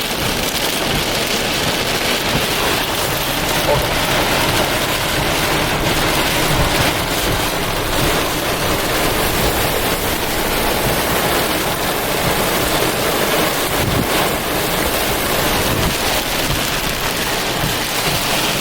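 Heavy thunderstorm rain falling steadily, a dense hiss of many small drop impacts, with some wind.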